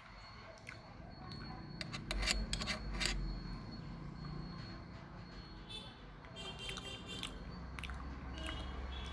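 A steel spoon clicking and scraping against a stainless steel plate while scooping fried rice, loudest as a run of sharp clicks about two to three seconds in, then close-up chewing with short wet crackles later on.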